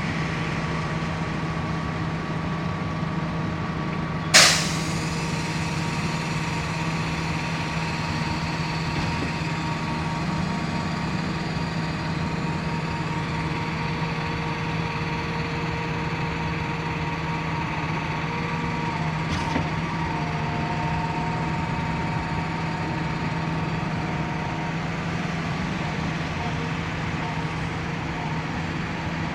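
Everdigm 36ZX truck-mounted concrete pump running steadily with a heavy engine hum, with one sharp bang about four seconds in and a faint click near twenty seconds.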